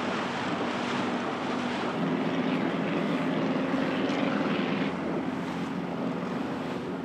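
Banner-towing light propeller planes droning overhead, swelling about two seconds in and easing off near the end, over wind on the microphone and water.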